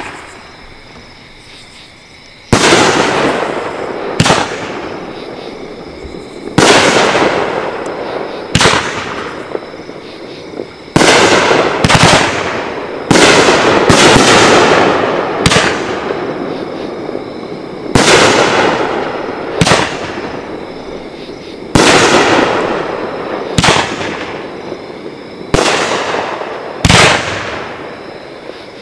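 A 500-gram Megabanger 'American Muscle' firework cake firing: a string of loud shell bursts, one every one to two seconds, each followed by a fading tail.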